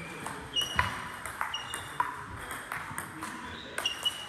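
Table-tennis rally: the ball clicks off the bats and pings as it bounces on the Donic table, a quick, regular series of sharp knocks, each with a short ring.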